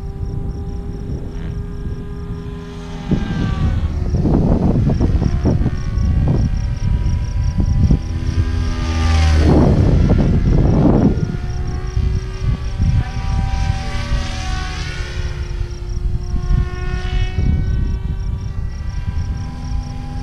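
SAB Kraken 580 electric RC helicopter (Egodrift Tengu motor, 603 mm main blades) in sport flight: a steady motor and rotor whine whose pitch bends up and down as it manoeuvres, with the rotor blade noise swelling loud as it comes near, loudest about halfway through.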